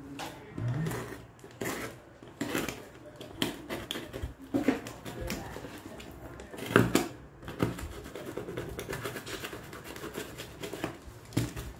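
A taped cardboard parcel being cut and picked open with a hand cutting tool: irregular scraping, snipping and tearing of packing tape with small clicks, and one louder knock about seven seconds in.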